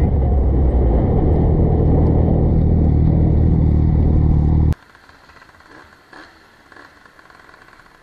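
Motorcycle riding at speed: engine and wind rumble on a helmet-camera microphone, loud and steady. It cuts off suddenly about five seconds in, leaving a much quieter, low motorcycle engine sound with a few faint knocks.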